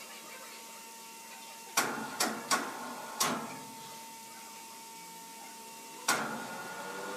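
Sharp knocks, four in quick succession about two seconds in and one more near the end, over the steady hum and whine of sawmill machinery.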